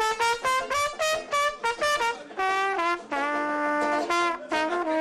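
Brass music led by trumpet: quick runs of notes, a chord held for about a second near the middle, then quick notes again.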